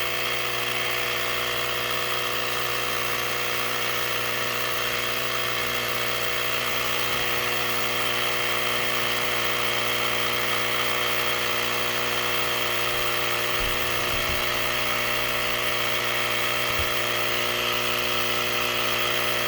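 Portable battery-powered tire inflator running continuously, its small electric compressor giving a steady, even buzzing hum while it pumps up a flat tire at around 9.5 to 10 psi.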